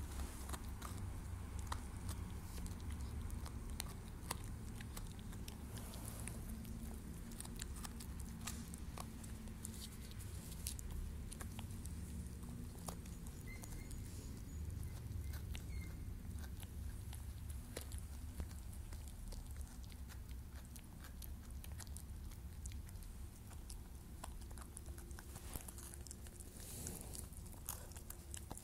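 Jack Russell Terrier gnawing a bone, its teeth making irregular crunching clicks on the bone.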